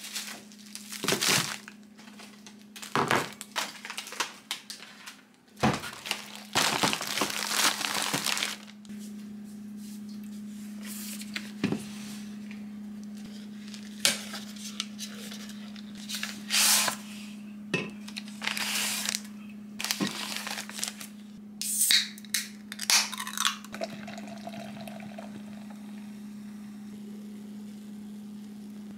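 Plastic packaging on a four-pack of cider cans crinkling and tearing as it is pulled open by hand, with knocks and clinks of the cans, over a steady low hum. Near the end, sparkling apple cider is poured into a glass.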